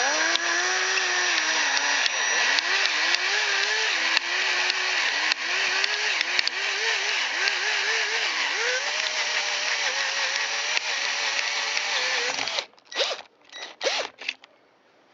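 Electric drill running a reverse (left-hand) twist bit into the stub of a broken allen bolt, its motor pitch dipping and wavering under load. It stops about twelve and a half seconds in, followed by four short trigger blips. The bolt does not back itself out.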